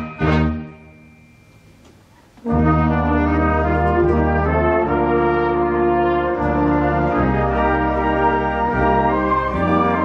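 Concert band with brass, woodwinds and timpani: a short chord cuts off just after the start and the hall rings briefly, then about two and a half seconds in the full band comes in with loud, held brass-heavy chords.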